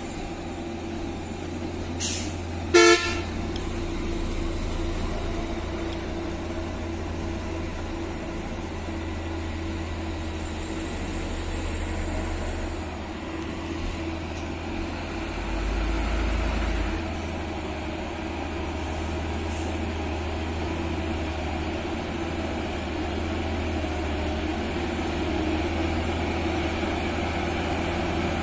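Diesel engine of a heavy log-laden truck running steadily as it approaches slowly on a gravel road, with one short horn toot about three seconds in.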